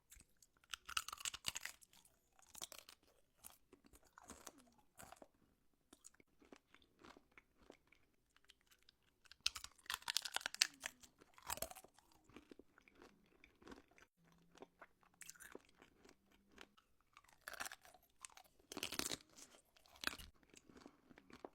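Homemade wax candy being bitten and chewed: crackly crunching in three loud spells, about a second in, around ten seconds and again around eighteen to twenty seconds, with softer chewing clicks between.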